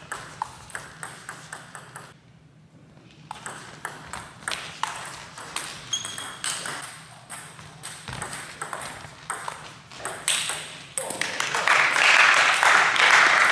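Table tennis ball clicking sharply off bats and table in a rally, then more scattered ball clicks after a short lull. A louder rush of noise rises near the end.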